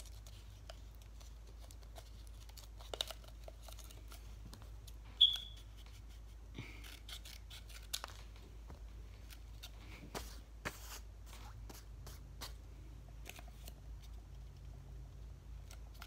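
Scissors snipping and hands rustling sheets of coloured paper, in scattered short clicks and rustles. A brief high squeak comes about five seconds in.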